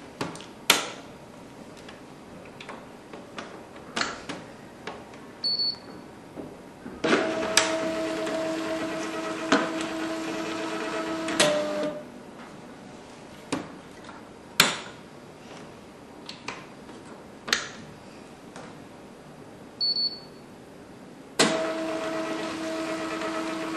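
TSC TTP-244 Pro thermal label printer being power-cycled and calibrated: sharp clicks of its power switch and buttons, a short high beep twice, and its feed motor running with a steady hum for about five seconds in the middle and again near the end as it advances labels to calibrate the gap sensor.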